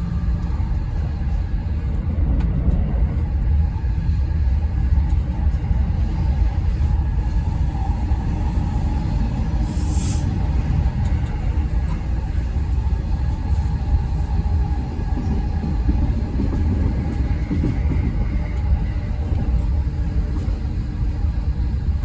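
Running noise of an E217 series commuter train heard inside the upper deck of its bilevel Green car: a steady low rumble of wheels on track, with a short hiss about halfway through.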